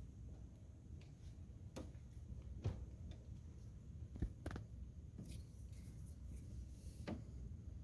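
A few faint, scattered clicks and light knocks, about five over several seconds, over a low steady hum: handling at an open freezer's ice maker.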